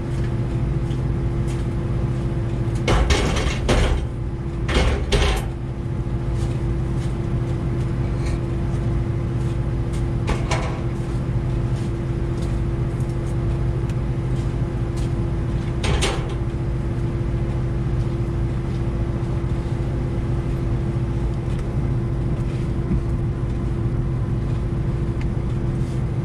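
Liebherr 914 Compact wheeled excavator running steadily at working speed, with a few short, harsher bursts of work noise over the engine: three in the first six seconds, one about ten seconds in and one about sixteen seconds in.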